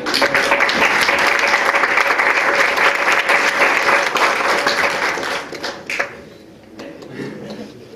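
An audience clapping together, dense and steady for about six seconds, then dying away.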